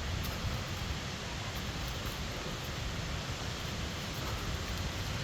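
Waterfall rushing: a steady, even roar of falling water with a deep rumble underneath.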